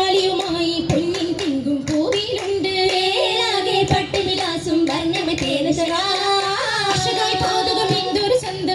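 Oppana song: high voices singing a Mappila melody in chorus, with the dancers' sharp hand claps cutting in now and then.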